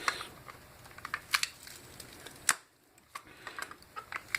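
Scattered small clicks and scrapes of a hand tool prying and bending the thin sterling silver edge of a hairbrush back, loosening the bristle block. There is a sharp click about halfway through.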